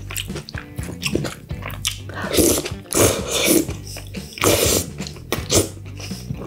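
Close-miked slurping of tomato-sauce spaghetti, with several loud slurps a second or so apart from about two seconds in. Chewing and small utensil clicks come between the slurps.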